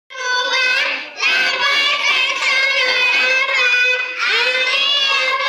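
A group of young children singing together in chorus, holding long notes, with short pauses for breath about a second in and again about four seconds in.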